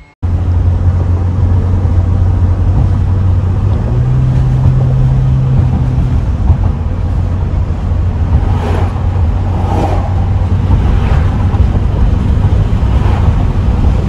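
Mercedes-Benz 190E driving at speed, heard from inside the cabin: a steady low drone of engine and road noise. A slightly higher hum joins in for a couple of seconds about four seconds in.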